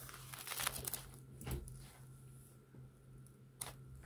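Paper pages of a ring-binder notebook rustling as they are leafed through, with a short click about three and a half seconds in, over a faint steady hum.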